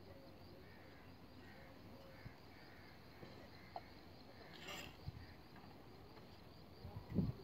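Faint outdoor background at a brick-and-bamboo building site, broken by a few brief knocks and, near the end, a couple of low thumps.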